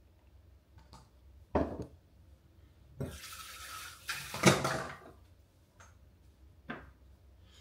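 Kitchen tap running for about two seconds, between sharp knocks of things set down on the counter.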